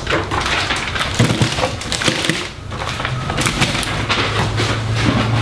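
Crinkling and rustling of packaging and cardboard as disposable litter boxes are lifted out of a shipping carton and stacked, with many small crackles and light knocks.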